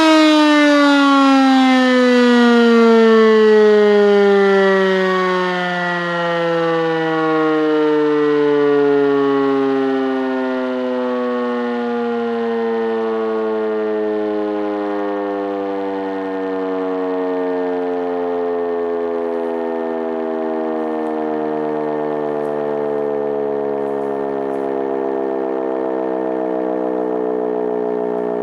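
E57 electromechanical siren winding down after its power is cut: one long falling wail that drops steadily in pitch and slowly fades as the rotor coasts. The siren is wired to a clockwise rotating field, so its rotor spins the wrong way.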